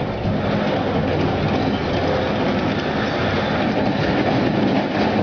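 Soviet T-34 tank's V12 diesel engine running with its steel tracks clattering as it drives forward: a loud, steady mechanical din.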